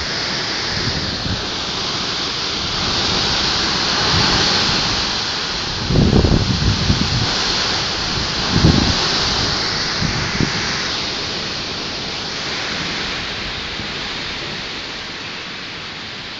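Hurricane wind and rain: a loud, steady rushing noise, with two short, louder low rumbles about six and nine seconds in, easing off a little near the end.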